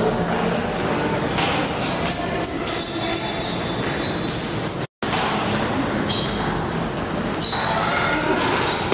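Echoing sports hall during table tennis play, with many short high sneaker squeaks on the floor and faint ball clicks over steady background noise. The sound drops out briefly about five seconds in.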